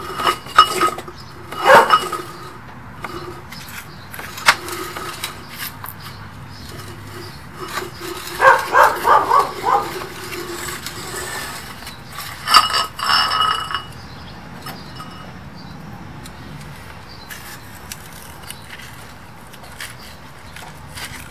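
Sewer inspection camera head and push cable clinking and knocking against a cast iron downspout as they are pulled back out, in a few short clusters of sharp metallic clinks with a ringing tone.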